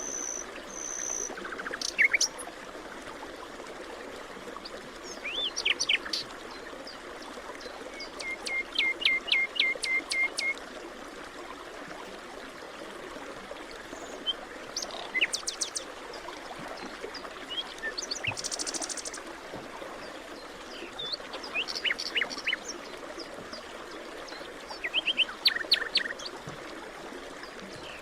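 Wild songbirds calling in a forest: scattered chirps and short trilled phrases, with a run of about eight quick repeated notes around nine seconds in, over a steady background hiss.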